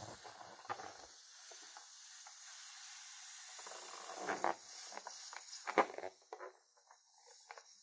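Latex balloon squeezed and rubbed between the fingers, giving soft rubbery squeaks and rustles against a faint hiss. A few louder squeaks come about four to six seconds in.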